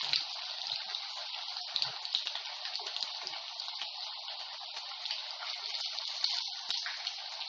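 Rice-and-potato cutlets deep-frying in hot oil in a kadhai: a steady sizzle with small crackles.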